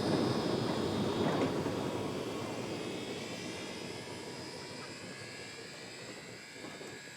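Steam train's rumble fading away steadily as it moves off.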